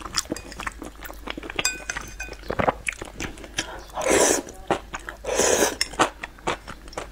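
Noodles slurped from a bowl of spicy sauce and chewed close to the microphone: two loud slurps about four and five and a half seconds in, with wet chewing and the clink of chopsticks on the ceramic bowl in between.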